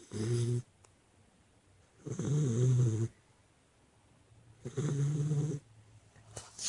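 A chocolate Labrador retriever puppy snoring in its sleep: three snores about two and a half seconds apart, the middle one longest and loudest.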